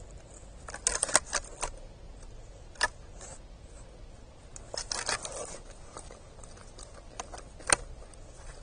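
Young buck deer eating seed from a wooden platform feeder: groups of sharp crunches and clicks as it chews and noses through the tray. There is a burst about a second in, one near three seconds, another around five seconds, and a loud one near the end.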